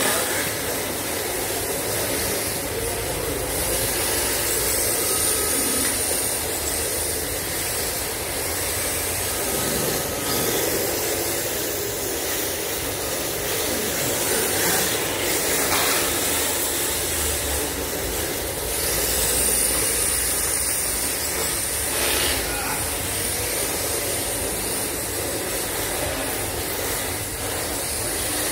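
Electric RC drift cars running on a tiled floor: a steady hiss of their hard drift tyres sliding, with a thin high motor whine that rises twice.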